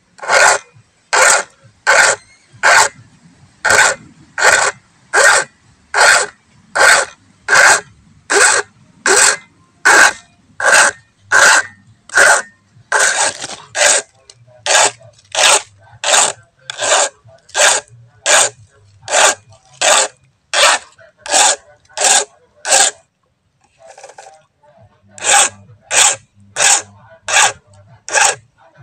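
A flat steel hand file rasping in even back-and-forth strokes across a Stihl chainsaw's chain, about one and a half strokes a second, with a short pause about 23 seconds in before the strokes resume. The chain is being filed because it cuts poorly, with the depth gauges lowered so the cutters stand taller.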